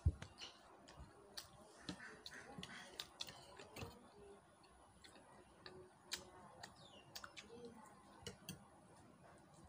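Faint eating sounds: scattered small clicks and smacks of chewing and lips as soft dosa is eaten by hand, with a few light taps.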